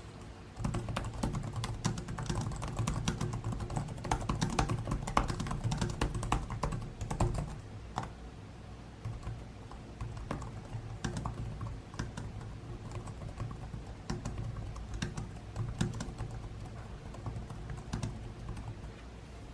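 Typing on a Lenovo ThinkPad T490 laptop's built-in keyboard: a quick, dense run of key clicks starting about half a second in, thinning to slower, quieter keystrokes after about eight seconds.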